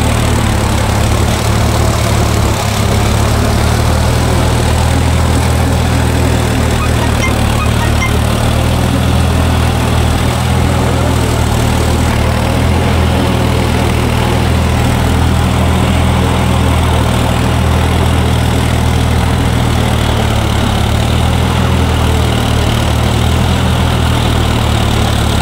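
John Deere PowerPro tractor's three-cylinder diesel engine running steadily as the tractor drives through deep mud, heard close up from the driver's seat.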